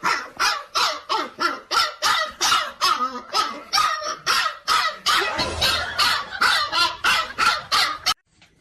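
A dog barking rapidly and continuously, about three or four barks a second, stopping abruptly near the end.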